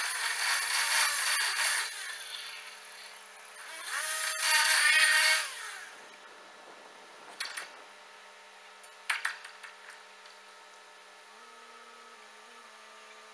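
Abrasive disc rail saw grinding through a steel rail, fading out about two seconds in. It then revs up again for about a second and a half before winding down, followed by two sharp metallic knocks and a low steady hum.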